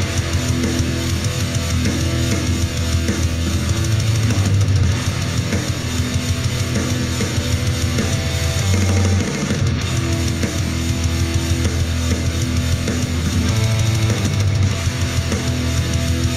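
Rock music with guitar and a drum kit, played through a JBL Flip 3 portable Bluetooth speaker as a sound test.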